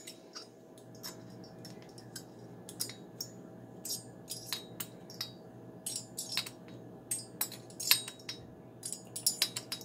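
Light, scattered metallic clicks and ticks of a hex driver working the cylinder head screws of a small Picco .21 nitro engine, snugging them down one after another.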